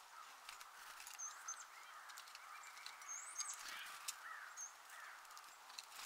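Faint winter backyard soundscape: several brief, high-pitched songbird call notes over a steady hiss of wind, with a few faint sharp clicks.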